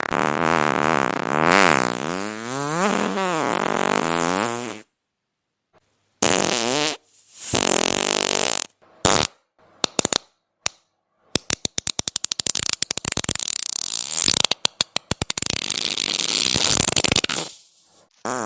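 A series of fart sounds. First one long, pitched fart whose pitch wavers up and down for about five seconds. After a short pause come several short farts, then a long sputtering run of rapid pops that lasts until near the end.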